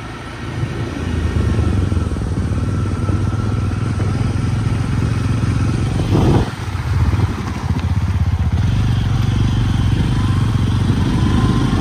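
Motorcycle engine running as the bike rides along, a steady low rumble that grows louder in the first second. There is a brief louder rush about six seconds in.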